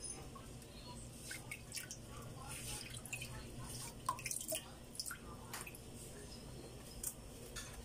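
Fish broth simmering in a stainless steel pot on the stove, with small bubbles popping and plopping at irregular moments.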